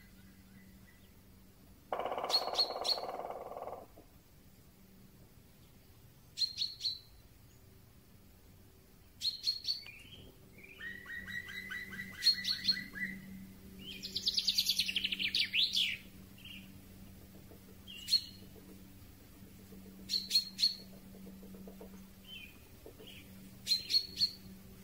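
Several woodland birds calling: sharp call notes in twos and threes every few seconds, a harsh buzzy call lasting about two seconds near the start, and around the middle a falling series of notes followed by a fast high trill, over a faint steady hum.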